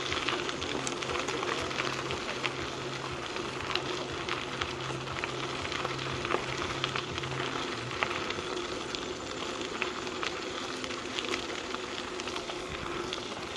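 Mountain bike tyres rolling over a gravel trail: a steady crackling crunch dotted with many small sharp clicks of stones. A low steady hum runs beneath it and stops about eight seconds in.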